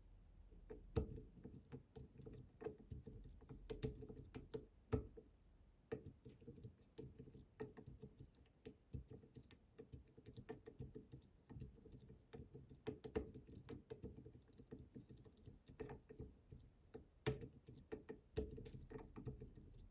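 Metal lock pick working the pins of a lock, making many small irregular clicks and taps with an occasional sharper click.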